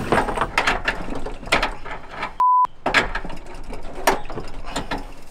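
Brass hose fitting being threaded by hand onto the gas inlet of a Joolca HOTTAP portable water heater: metal clicking and scraping. A short steady censor bleep cuts in about two and a half seconds in.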